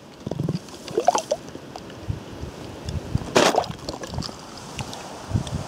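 Water gurgling and sloshing as a metal mug is dipped into a shallow stream to fill it, with one louder splash about three and a half seconds in and water pouring off the mug as it is lifted out.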